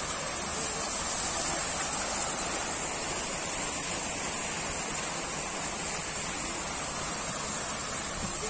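Water from a tiered ornamental fountain's jets splashing steadily into its pool, a constant rushing hiss.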